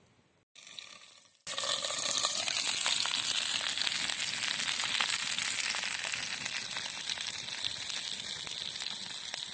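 Wood fire burning close up: a steady hiss dense with small crackles and pops, starting abruptly about a second and a half in.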